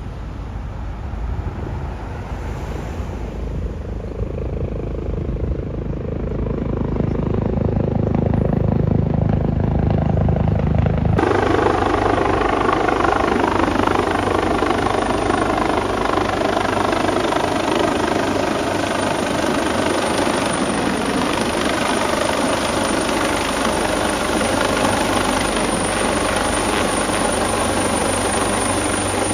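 Medical helicopter running, its rotor and engine noise growing louder as it approaches, then jumping suddenly to a louder, closer sound about eleven seconds in.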